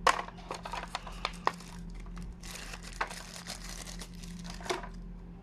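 Plastic packaging crinkling and crackling as it is handled, with a dense run of crackles about halfway through.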